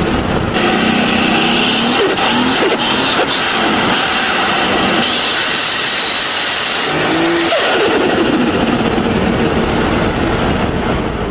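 Turbocharged car engine running hard and revving, its pitch climbing several times with a change in the sound about seven and a half seconds in.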